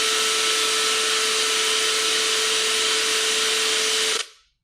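Television static: a steady, loud hiss with a single steady tone running through it, stopping abruptly near the end.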